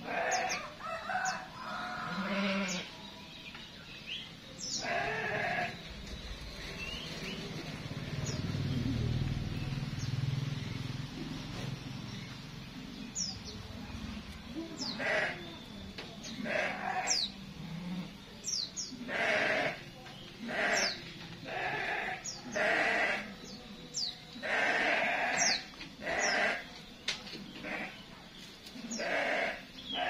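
Goats bleating over and over, the calls coming thick and fast in the second half, with small birds' thin, quick, falling chirps throughout. A low rumble passes for several seconds in the first half.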